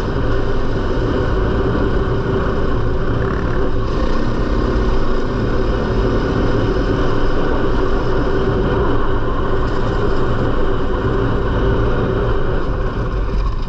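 Four-stroke single-cylinder dirt bike engine running steadily as the bike is ridden along a trail.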